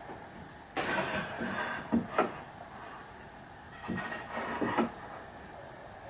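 Wooden slats handled on a workbench: two spells of wood scraping and knocking, the first ending in two sharp knocks about two seconds in, the second about four seconds in.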